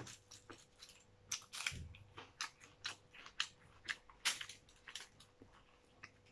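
Close-up eating noises: chewing with a full mouth, and irregular sharp clicks and crunches as cooked crab shell is cracked and picked apart by hand.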